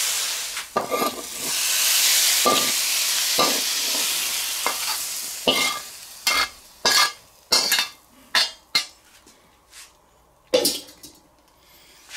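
Zucchini sizzling in a hot wok as a metal spatula stirs it, the sizzle dying away over the first six seconds. Then a series of sharp metal scrapes and clinks as the spatula scrapes the food out of the wok into a stainless-steel bowl.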